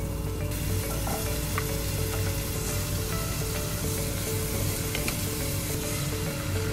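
Ham strips, then carrot and shimeji mushrooms, sizzling in hot oil in a nonstick pot while being stirred with a wooden spatula. The sizzle starts about half a second in, over soft background music.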